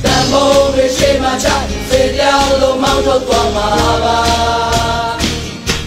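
A song in Burmese: sung vocals hold long notes over backing music, dropping away near the end.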